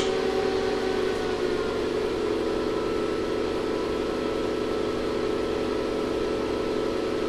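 Steady hum and whir of a running 2500-watt ZVS induction heater rig, with a few constant tones, while a piece of sheet steel over its pancake work coil draws about 26 amps.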